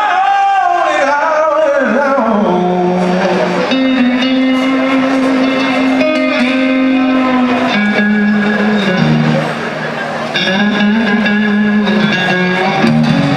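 Live solo electric guitar with a man singing into a microphone: a sung line in the first couple of seconds, then held guitar notes stepping between a few pitches.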